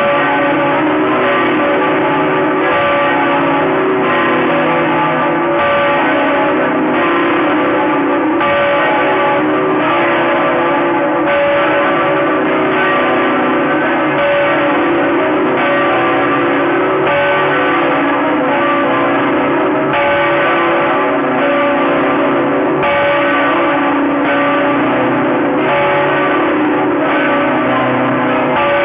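Church bells of Notre-Dame Cathedral Basilica, Saigon, ringing in a steady, unbroken peal. Several bells are struck again and again so that their tones overlap and ring on.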